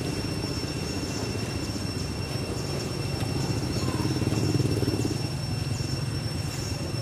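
Low rumble of a passing vehicle engine, growing louder about four to five seconds in and easing off after, under a thin steady high-pitched whine.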